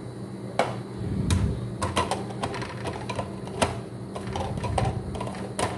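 The metal lid of a stainless-steel dallah-style coffee thermos being turned and closed by hand: an irregular run of light clicks and taps, metal on metal, over a steady low hum.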